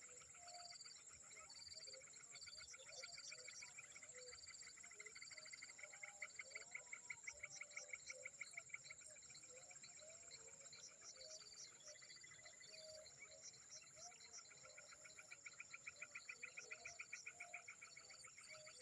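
Faint insect and frog chorus. A steady high-pitched insect whine runs under a fast pulsing trill that swells twice, with short repeated chirps and scattered lower calls.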